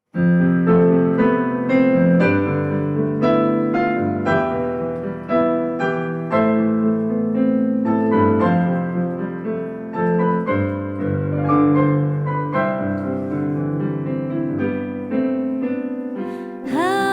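Solo piano playing the introduction of a slow song, chords and melody notes struck in a steady flow. Right at the end a singer's wavering voice begins to come in.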